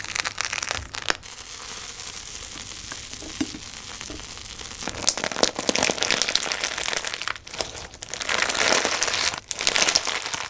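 Slime being squished and pressed by hand close to the microphone: dense, irregular crackling and popping that swells twice, about halfway through and again near the end, with brief pauses in between.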